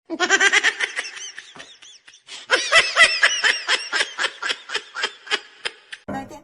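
A person laughing hard in rapid, high-pitched bursts, several a second, in two long fits with a short break after about two seconds.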